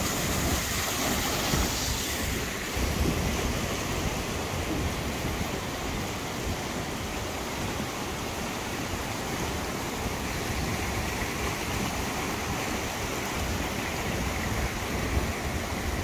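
Steady rushing of a small mountain stream and its little waterfalls. The hiss is fuller for the first couple of seconds, then settles to an even rush.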